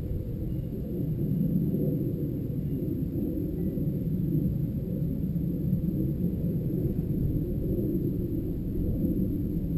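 Wind buffeting a GoPro's microphone: a steady low rumble that grows a little louder about a second in.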